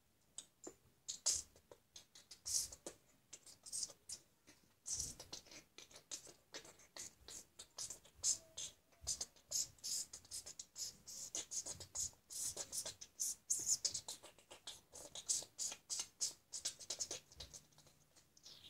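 Loose Lego bricks clicking and rattling against each other as pieces are sifted and handled, a rapid, irregular stream of small plastic clicks.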